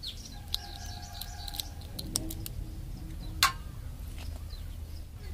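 Small freshwater crabs' shells being broken open by hand to pull out the meat: scattered small clicks and cracks, with one sharp crack about three and a half seconds in. Birds chirp in the background.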